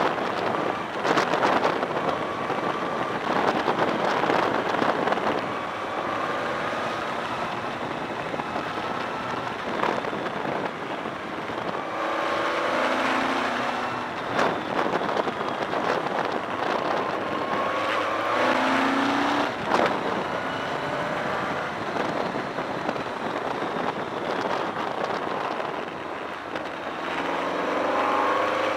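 BMW K1200R Sport's inline-four engine running under way in the rain, under a steady rush of wind and rain noise. The engine note climbs several times, about 12 s in, about 18 s in and near the end, as the bike pulls away.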